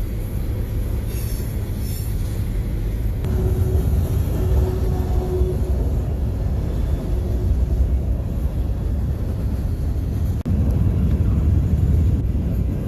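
Train rolling by with a steady low rumble; about ten and a half seconds in it breaks off briefly and a similar low rumble carries on.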